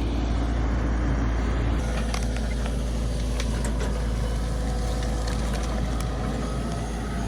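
Heavy equipment's diesel engine running steadily at a low rumble, with scattered light clicks and knocks from about two seconds in.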